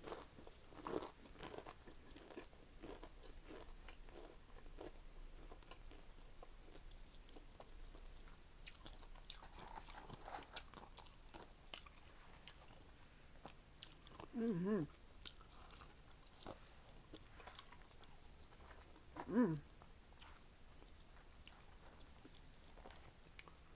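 Close-miked chewing and biting of crisp fried food, with faint crunches and mouth clicks scattered throughout.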